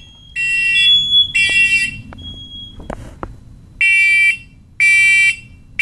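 Hardwired, interconnected smoke alarms sounding on test, set off by holding the test button of a First Alert 9120B. They beep in the temporal-three pattern of half-second beeps about a second apart: two beeps end one group of three, a pause of about two seconds follows, then a full group of three. A higher steady alarm tone from another unit sounds under the first beeps and stops about two and a half seconds in.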